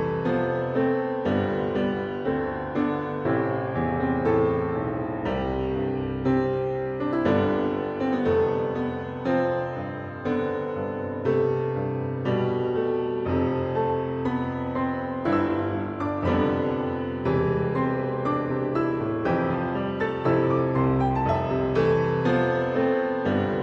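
Background music led by piano, with notes struck in a steady rhythm.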